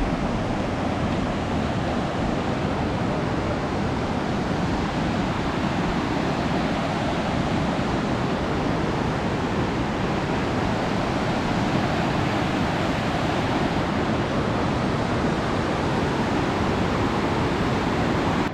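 Steady rushing of fast water close to the microphone, a constant even noise with no break, cutting off suddenly at the end.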